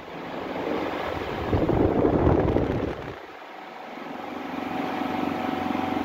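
Mondial Super Turbo VTX eight-blade fan running at its top speed, its air blast buffeting the microphone in gusts. The rush dips about three seconds in, then comes back steadier.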